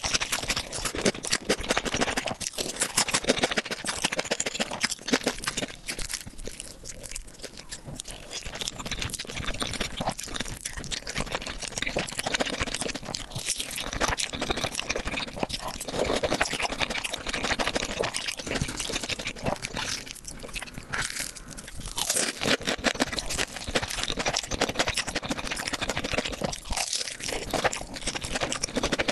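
Close-miked eating: crunchy bites and chewing, a dense run of crackling clicks, a little softer for a few seconds near the first third.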